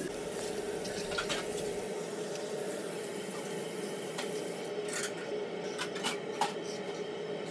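Spatula stirring a thick, bubbling coconut-milk and corn-starch pudding in a pot: wet squishing with scattered scrapes and light taps against the pot, over a steady low hum. The mixture is thickening toward a paste and is kept moving so it does not burn on the bottom.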